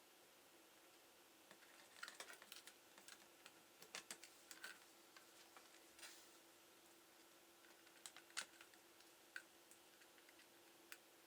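Faint, irregular clicks and taps in short clusters, as of typing on a laptop keyboard, over a steady faint hum.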